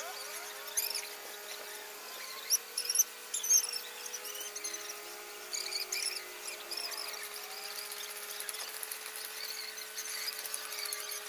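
High-pitched chirps and squeaks, short and irregular, over a steady hum.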